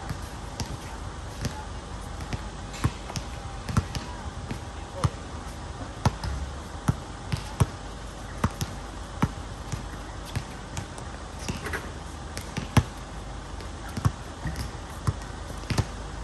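Basketball bouncing on an outdoor hard court as it is dribbled, in irregular sharp bounces about one or two a second.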